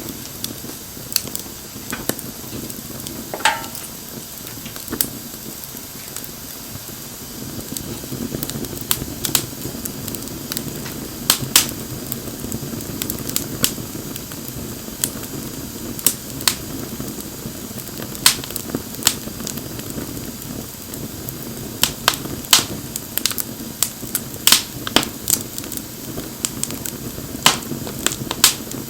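Wood bonfire burning: a steady low rush of flame with sharp, irregular crackles and pops from the burning wood, coming more often near the end, and a short whistle about three seconds in.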